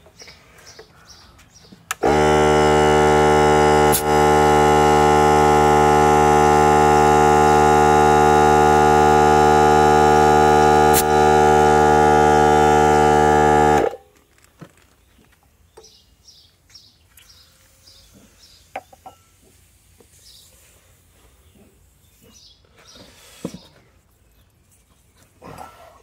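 Air compressor kicks on about two seconds in, runs loudly and steadily for about twelve seconds while air is put into a lawn mower tire, then cuts off abruptly. Afterwards there are only a few faint clicks of handling.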